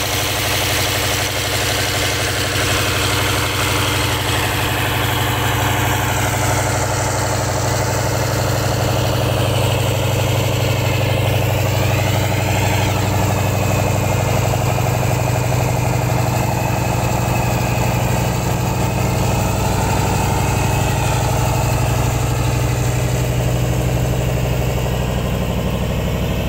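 Engine of a sand-dredging boat running steadily at a constant pitch as it drives the pump that sucks sand and water from the pit.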